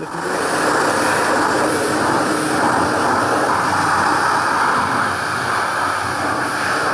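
Electric pressure washer running, its narrow jet of water blasting against the van's sheet-metal body with a loud, steady hiss as it strips loose paint off the rusted spots.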